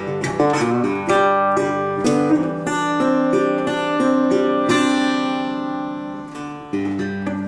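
1930 National Triolian resonator guitar played solo: a run of picked notes, then a chord about halfway through that rings out and fades, and more picked notes near the end.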